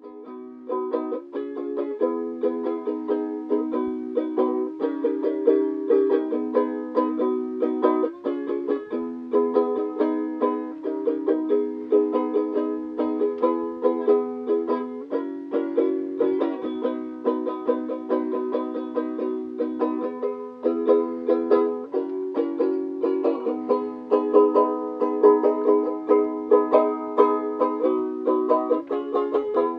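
Ukulele being played, a steady run of plucked notes and strummed chords.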